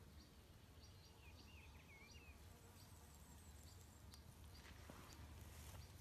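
Near silence: faint outdoor ambience with a few soft bird chirps about a second in, and quiet rustling near the end.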